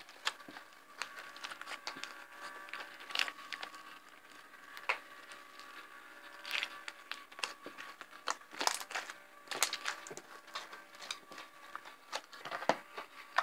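Glossy slime with small plastic bits mixed in being kneaded and squished by hand, making irregular small wet pops and crackles.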